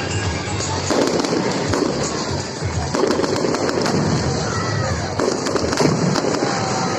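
Fireworks display: aerial shells bursting with deep booms about a second in, at three seconds and twice between five and six seconds, over continuous dense crackling.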